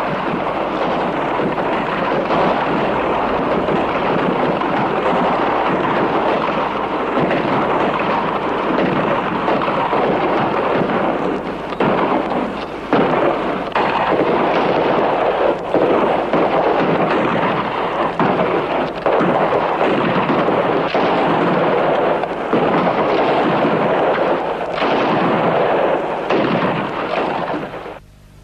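Battle sound effect laid over archival war footage: a dense, continuous crackle of gunfire with heavier blasts standing out every few seconds, cutting off abruptly just before the end.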